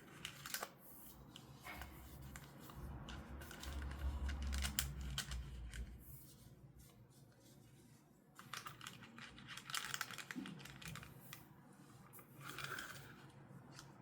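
Hands unpacking a toy from its packaging: irregular clicks and crinkling of plastic and cardboard, with a dull low handling rumble about four to six seconds in.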